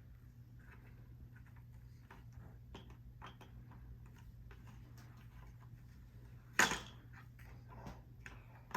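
Plastic toy game pieces being handled and fitted together: scattered light clicks and taps, with one loud sharp snap about six and a half seconds in, over a low steady hum.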